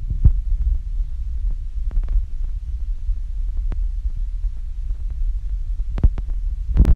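Phone microphone handling noise: a low, muffled rumble with a few soft knocks as the phone is held and jostled close to the body.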